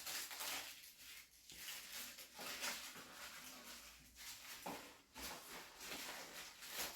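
Faint rustling and a few soft knocks as the parts of a softbox light kit are handled and fitted together.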